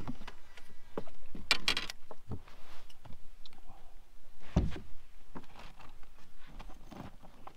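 Baitcasting reel being wound on a fast crankbait retrieve, with scattered clicks and knocks on the boat deck. A sharp cluster of clicks comes about one and a half seconds in, and a dull thump about four and a half seconds in.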